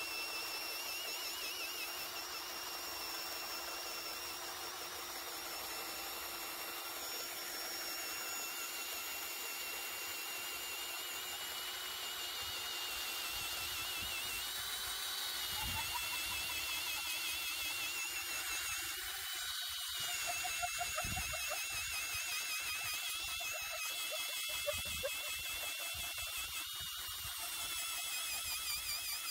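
Ryobi brushless hammer drill in drill mode, first gear, boring a 1-inch, 18-inch-long auger bit into wood: a continuous motor whine under load. It is steady for the first half, then turns uneven in the second half.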